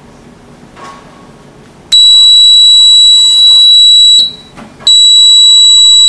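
Ship's fire alarm sounding from the fire alarm control panel, its FIRE lamp lit: a loud, steady, high-pitched alarm tone starts about two seconds in, breaks off for about half a second past four seconds, then sounds again.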